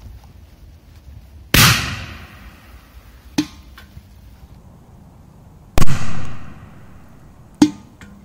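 Two heavy bangs from large Bermuda firecrackers set off under a metal milk can, each dying away over about a second. About two seconds after each bang comes a shorter, quieter sharp crack.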